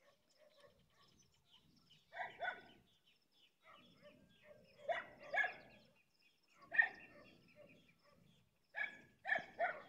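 Dog barking in short runs of one to three barks, about eight barks in all, with faint bird chirps behind.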